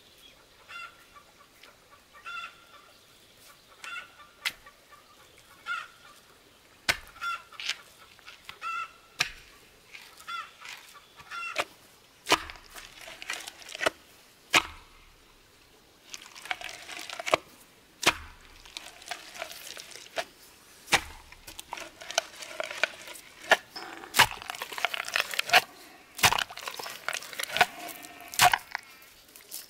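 Domestic fowl calling over and over, with a run of sharp knocks as a bamboo pole is pounded down into wet mud. The knocks come faster and mix with denser scraping noise in the second half.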